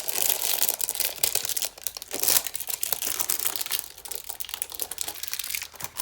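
Plastic wrapping on trading-card packaging being torn and crumpled by hand, a continuous irregular crackling and crinkling.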